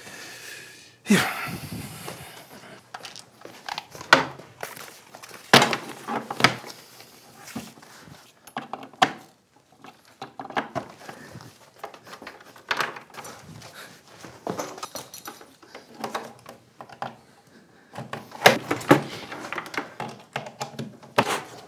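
Irregular thunks, knocks and clatter of electrical cords and a plastic power strip being handled and plugged in on a wooden tabletop, loudest about a second in and again near the end.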